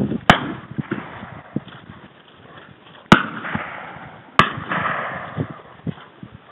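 Three shotgun shots: one about a third of a second in, then two more about three seconds and four and a half seconds in, each followed by a short echo.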